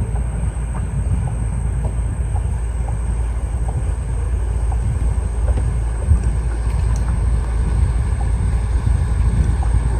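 Wind buffeting the microphone outdoors, a steady low rumble with a few faint ticks over it.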